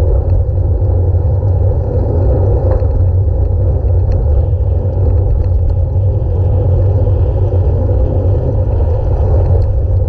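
Steady low rumble of wind buffeting the microphone, with road noise, as heard from a camera on a moving bicycle.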